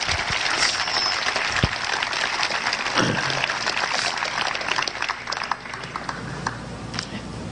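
Audience applauding after an answer, with a short whistle about a second in; the clapping thins out over the last couple of seconds.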